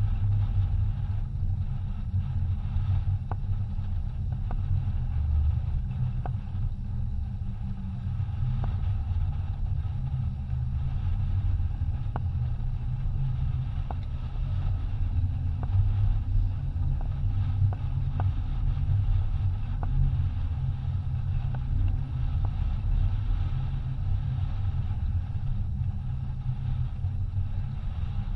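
Wind buffeting the microphone and water rushing along the hull of a racing yacht under sail, a steady low rumble with a hiss of spray over it. A few faint ticks come through now and then.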